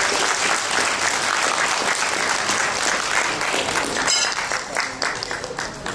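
A roomful of guests applauding: many hands clapping in a dense patter that thins out about five seconds in.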